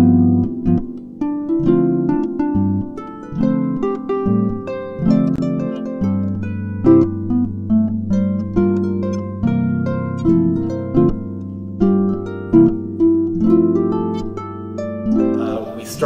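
Background music: a melody of plucked-string notes, with a low note held underneath from about six seconds in.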